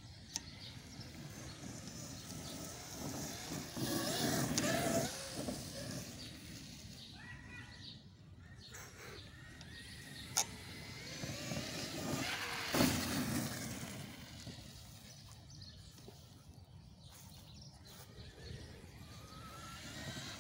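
Traxxas X-Maxx 8S electric RC monster truck driving over grass, its brushless motor and drivetrain whining up and down as it accelerates and slows. It is louder in surges about four seconds in and again about thirteen seconds in, with a rising whine near the end.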